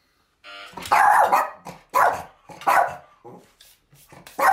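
A pet dog barking loudly and repeatedly, about one bark a second, starting suddenly about half a second in. The barking is an alert at someone at the door.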